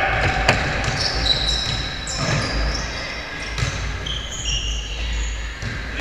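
Basketball game on a gym court: the ball bouncing and players' footsteps, with many short high sneaker squeaks on the floor and some shouting from the players. A sharp knock about half a second in is the loudest sound.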